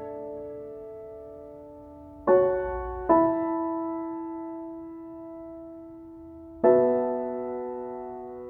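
Background music: slow sustained keyboard chords, three struck in turn and each left to ring and fade.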